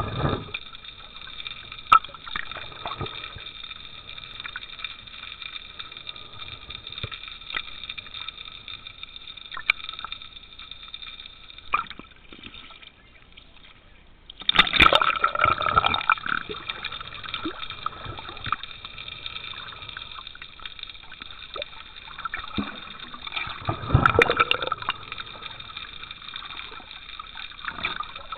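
Water gurgling and sloshing heard through a diver's mask-mounted camera underwater, with scattered small clicks. Two louder stretches of splashing and bubbling come about fifteen and twenty-four seconds in, the first as the diver breaks the surface. A faint steady high hum runs underneath.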